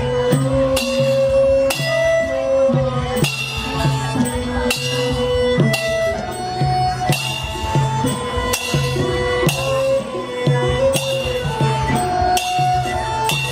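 Traditional music: a melody of held notes moving step by step over a steady drum beat.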